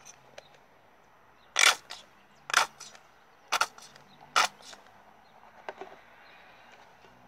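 A bottle of white glue being squeezed out into a plastic tub, giving four short, sharp spurts of noise about a second apart as the nearly empty bottle sputters air and glue from its nozzle.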